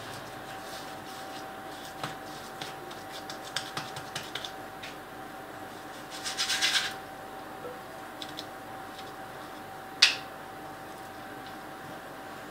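Fluted cookie cutter worked through soft cookie dough against a countertop: light scattered clicks and scrapes, a quick rattle of clicks about six seconds in, and one sharp knock near ten seconds. A faint steady hum lies underneath.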